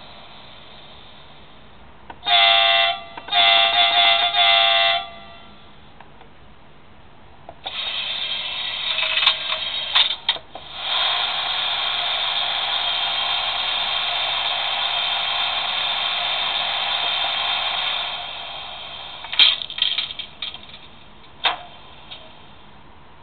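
LokSound digital sound decoder in a Liliput H0 model of an SBB Stadler FLIRT, played through the model's small speaker. The train horn sounds twice, a short blast and then a longer one. Then a steady mechanical running sound lasts about ten seconds, followed by a few sharp clicks near the end.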